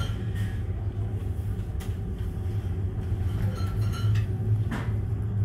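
Steady low hum of the car ferry Ulysses' engines and machinery, heard inside the passenger lounge, with a couple of faint knocks.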